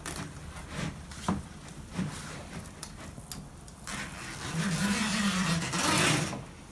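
Sharp knife cutting across new window screen mesh: scattered light clicks and ticks, then a longer rasping scrape from about four seconds in.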